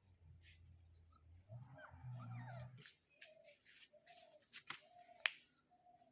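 Faint animal cries: a wavering whine about a second and a half in, then short, evenly pitched squeaks every half second or so, with scattered soft clicks and one sharp click near the end.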